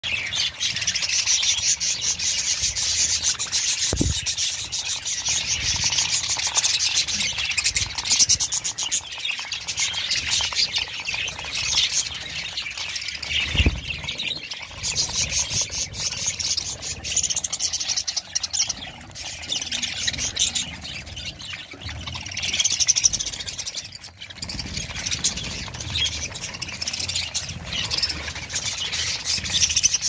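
A flock of budgerigars chattering and chirping nonstop in a dense, high-pitched twitter. There are two brief low thumps, one about four seconds in and one about thirteen seconds in.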